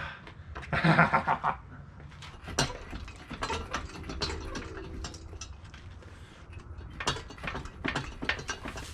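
Hand ratchet wrench clicking in short runs, mixed with metal clinks of tools and parts, as bolts are worked out of a stripped 5.3 L LS V8 block; a louder burst comes about a second in.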